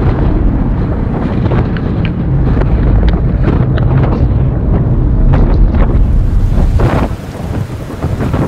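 Storm wind buffeting the microphone, a loud low rumble with scattered sharp ticks. It eases off about seven seconds in.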